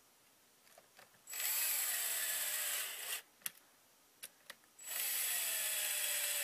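Cordless drill-driver driving the case screws home in two runs of about two seconds each, its motor whine rising and then falling. A few light clicks between the runs.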